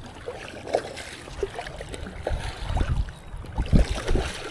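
Shallow saltwater trickling and dripping, with small scattered splashes.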